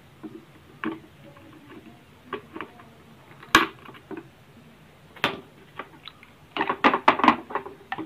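Diagonal cutters crunching and snapping pieces off a cracked STR6059H switching power-supply IC package on a circuit board, in sharp single cracks a second or so apart, with a quick cluster of clicks near the end.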